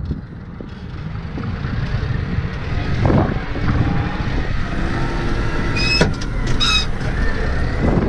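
New Holland farm tractor's engine running as it drives along a paved road, heard from inside the cab, growing louder over the first two seconds. A few sharp metallic clinks about six seconds in.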